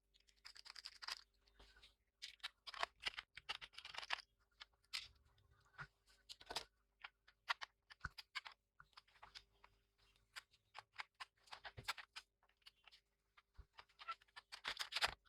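Faint, irregular clicks, scrapes and rustles as a laptop is handled and worked on by hand to open its case.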